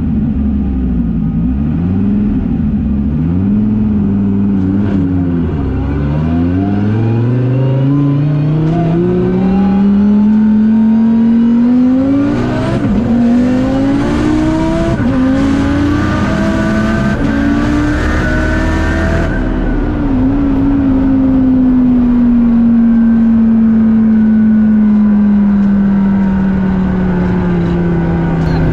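Twin-turbocharged 8.4-litre V10 of a 2014 Dodge Viper, heard from inside the cabin during a full-throttle run. Its revs rise and dip in short swings for the first several seconds, then climb through the gears with several shift breaks and a rushing hiss at the top of the pull, then fall slowly as the car lifts off and slows.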